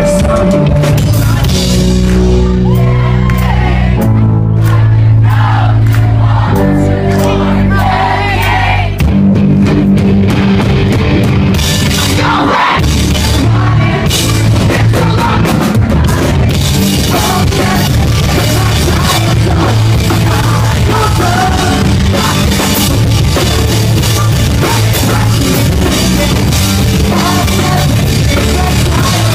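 Live pop-punk band playing loud in a club with a lead singer, heard from the crowd. Sustained guitar chords carry the first nine seconds or so, then the drums and full band come in.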